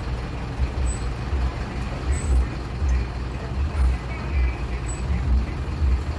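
City bus's diesel engine running at low speed, heard from inside the cabin at the front: a steady low rumble that swells and dips unevenly.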